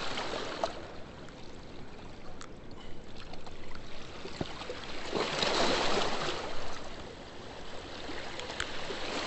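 Rushing river water at a spillway, a steady wash that swells louder for a second or so about five seconds in, with a few faint clicks over it.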